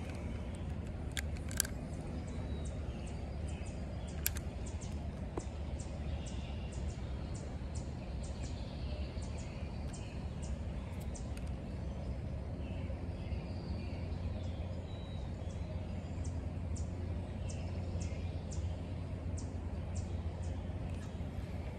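Steady low rumble of traffic on the road bridge overhead, with faint high chirps repeating about two to three times a second.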